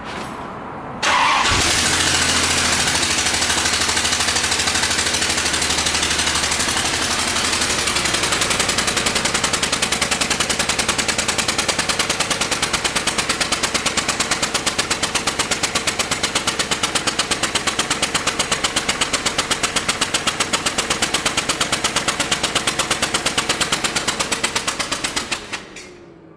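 C4 Corvette's V8 engine turned over on the starter about a second in and kept turning for about 24 seconds with a rapid, even ticking, then stopped abruptly near the end. This is a spark test, with one plug wire held off to ground to see whether it arcs.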